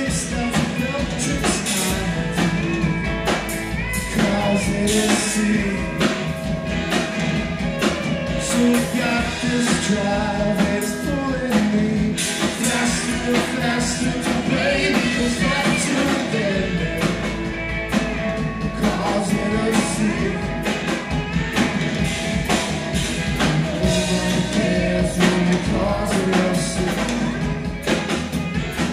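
Live rock band playing a song: electric and acoustic guitars with drums, a continuous full-band sound.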